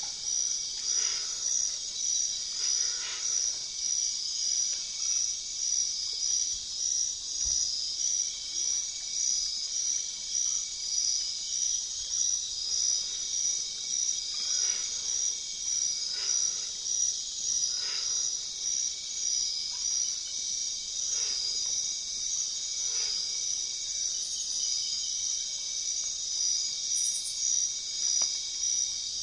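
A steady chorus of insects: a high, rapidly pulsing trill that swells and fades in a regular rhythm. A few faint short calls sound lower down.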